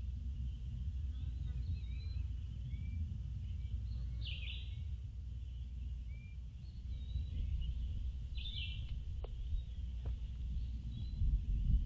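Small birds singing in short, repeated chirping phrases every couple of seconds over a steady low rumble of outdoor microphone noise. Two faint ticks sound near the end.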